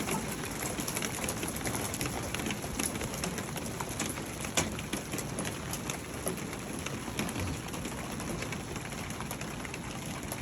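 Hail pelting a metal roof: a dense patter of sharp ticks over a steady rush, with one louder hit about four and a half seconds in.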